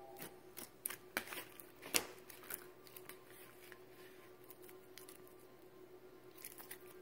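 Clear glitter slime pressed and stretched by hand, giving a run of small sharp clicks and pops, thickest in the first couple of seconds and again near the end.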